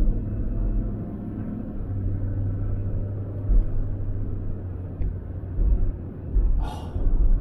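Inside the cabin of a 2007 Toyota 4Runner V8 speeding up from low speed: a steady low engine and road rumble with low thumps, and a brief hiss near the end. No bearing hum stands out, the wheel and differential bearings having just been replaced.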